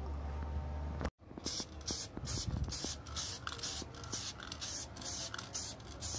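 Aerosol spray paint can hissing in a quick series of short bursts, about three a second, as a coat of paint is laid on a motorcycle fork leg.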